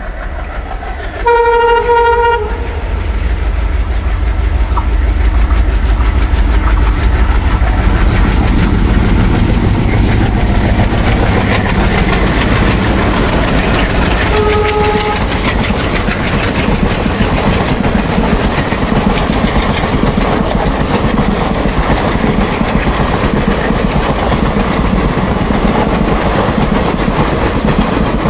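Diesel-hauled Indian express train passing close at speed, its locomotives sounding the horn in a long blast near the start and a short one about halfway. Between the blasts come the steady rumble of the engines and the wheels clattering over the rail joints.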